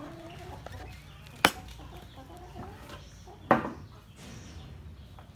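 Chickens clucking faintly in the background. About a second and a half in, and again about three and a half seconds in, there is a sharp knock; the second one is louder and rings briefly, like a utensil or bowl set down on the table.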